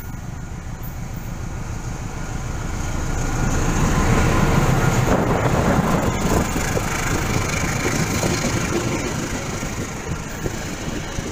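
A GE CC206 diesel-electric locomotive's engine running as the train approaches and passes close by. The sound swells to its loudest about four to six seconds in as the locomotive goes past, then eases a little as the passenger coaches follow.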